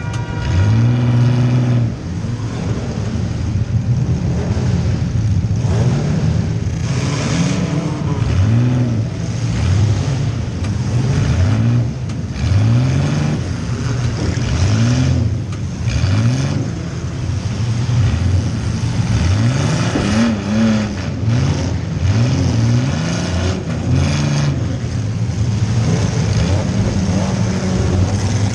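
A compact demolition-derby car's engine, heard from inside the car, revving up and dropping back again and again every second or two, with a few sharp knocks mixed in.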